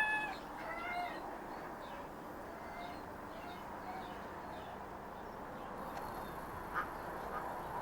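Short nasal animal calls: a louder one right at the start, a few smaller ones about a second in, then faint scattered calls over a steady background hiss.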